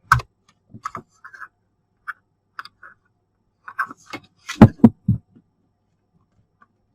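Small objects being handled and set down: scattered light clicks and rustles, then a cluster of knocks about four and a half seconds in, the loudest sounds here.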